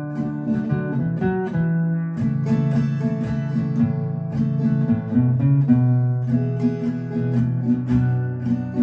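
Acoustic guitar playing chords in a steady rhythm, an instrumental passage with no singing.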